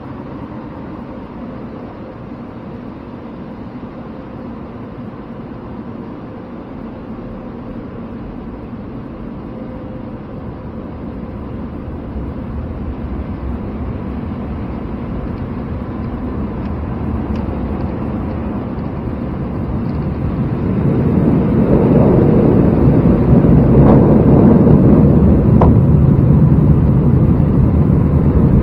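Automatic car wash machinery running over the truck, heard from inside the cab: a steady rush of spray and blowing that grows louder from about halfway through and is loudest in the last third.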